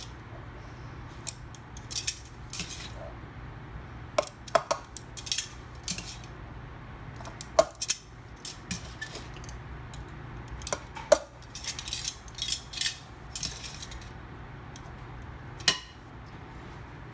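A metal spoon clinking and scraping against a metal muffin pan as shredded hash browns are scooped into the cups, with short rustling of the potato shreds between scattered sharp clicks.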